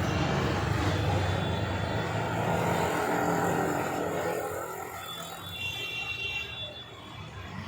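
A motor vehicle's engine humming, fading away about four and a half seconds in, with a faint high tone after it.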